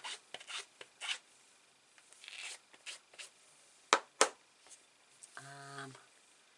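Craft supplies being handled on a desk: short rustles and wiping scrapes, then two sharp clicks in quick succession about four seconds in, the loudest sounds.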